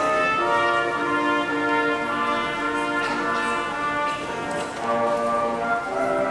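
Instrumental ensemble music led by brass, playing held notes in chords.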